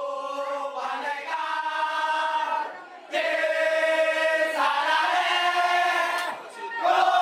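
A group of Persita football supporters, men's voices, singing a chant together in unison. They hold long notes in phrases of about three seconds, with short breaks about three seconds in and again past six seconds.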